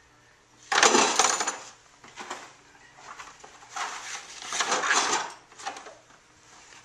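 Hand tools and packing supplies clattering as they are dropped into a plastic milk crate: a loud rattle about a second in, a few small knocks, then a second longer clatter around four to five seconds in as the crate is handled.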